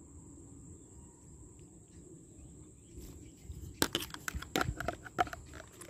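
Quiet outdoor background with a steady high thin tone, then a cluster of sharp, irregular clicks and knocks about four seconds in, as the phone and spear are handled.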